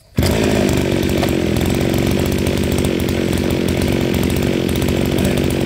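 Shingu KB3220 brush cutter's two-stroke engine starting on a single pull of its spring-assisted recoil starter: it catches about a fifth of a second in and then runs steadily.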